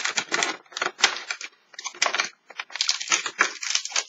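Plastic wrapper of a small Kinder chocolate crinkling as it is pulled out from behind an opened cardboard advent-calendar door: quick, irregular rustles and crackles.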